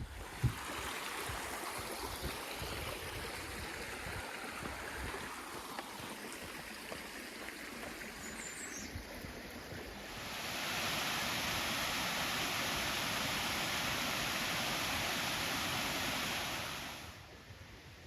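Steady rushing noise. It grows louder about ten seconds in and falls away again near the end.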